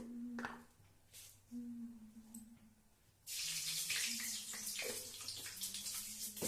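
Water running from a kitchen tap, switched on suddenly about three seconds in and running steadily.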